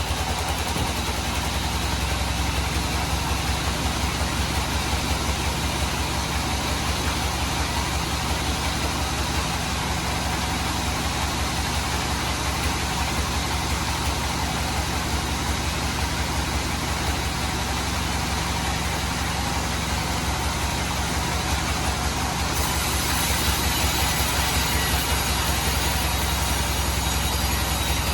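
Band sawmill running steadily, with a fast low engine-like throb under a wide even noise. A brighter, hissier layer comes in about 22 seconds in.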